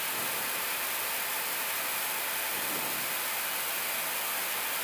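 Steady, even hiss of an Airbus A320 cockpit during taxi with the engines still at idle, the flight-deck air and engine noise unchanging throughout.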